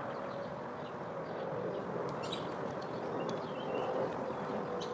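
Small nitro RC engine (an O.S. glow engine) running steadily at idle, a constant whine that wavers slightly in pitch; the owner says it is loading up. Faint bird chirps now and then.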